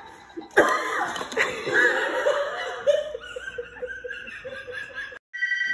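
A person laughing: a high-pitched, drawn-out laugh that starts about half a second in and stops abruptly near the end.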